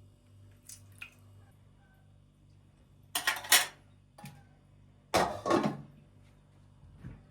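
Kitchenware scraping and clattering twice, about two seconds apart, each for about half a second, with a few faint clinks before them: food being scraped out with a spoon into a dish.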